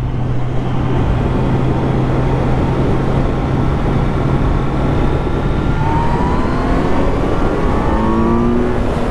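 Kawasaki Z900 inline-four engine at a steady cruise with wind rush, then accelerating from about six seconds in, its pitch rising.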